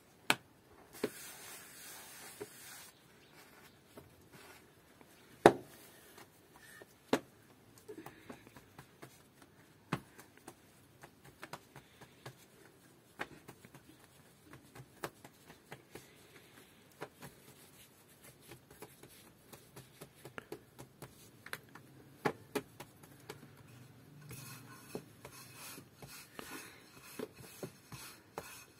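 Irregular handling sounds: scattered sharp knocks and clicks with light rubbing between them, the loudest knock about five seconds in. A short hiss comes about a second in.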